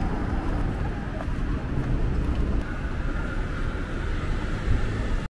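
City street ambience at night: a steady rumble of road traffic.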